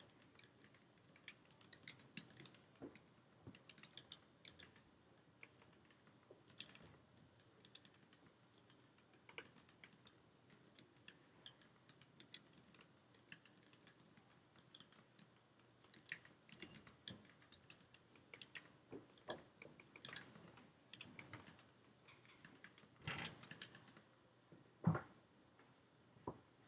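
Faint typing on an Iris split mechanical keyboard: an irregular, continuous patter of key clicks, with a heavier knock near the end.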